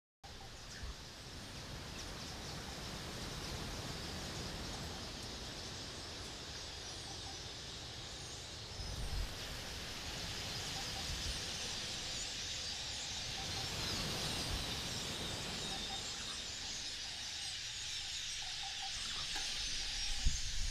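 Outdoor rural ambience: a steady high-pitched hiss with scattered small bird chirps.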